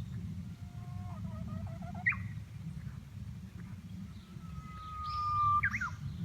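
Japanese bush warbler singing: scattered whistled notes, then near the end its "hoo-hokekyo" song, a long held whistle broken off by a quick rising-and-falling flourish. A low steady rumble runs underneath.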